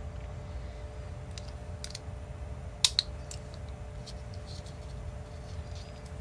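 Small sharp clicks and taps of a TS100 soldering iron's orange plastic case shell and its small metal parts being handled and pressed together during reassembly. The loudest is a quick double click about three seconds in.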